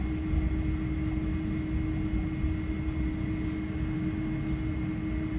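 Jet airliner cabin noise heard from inside, with the engines running: a steady low rumble carrying two steady hum tones, one low and one high.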